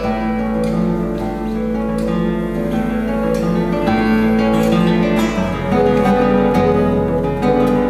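Solo classical guitar, fingerpicked, with notes left ringing over one another; a new, lower bass line comes in about five and a half seconds in.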